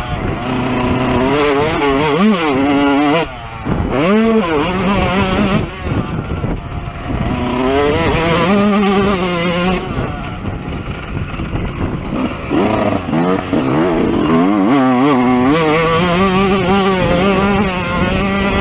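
Yamaha YZ125's single-cylinder two-stroke engine racing on a motocross track, its pitch repeatedly climbing under throttle and falling back as the rider shifts and rolls off. The throttle is snapped shut briefly about three seconds in, and the revs are held steady for short stretches in between.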